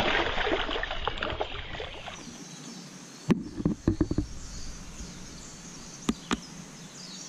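Water splashing and churning at the stream's edge as a hooked smallmouth bass thrashes at the surface, for about the first two seconds. Then a steady quieter hiss with a few sharp knocks around three to four seconds in and two more just after six seconds.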